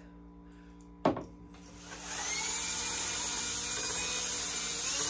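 Electric drill spinning up about two seconds in and running steadily, turning a .22 caliber bore brush inside the chamber of a .17 HMR rifle to scrub out gummed-up fouling that had made a fired case stick. A brief sharp sound about a second in comes before it.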